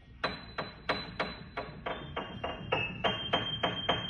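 A toddler pressing keys on a Kawai upright piano, one note at a time, about three notes a second. Each note rings on into the next.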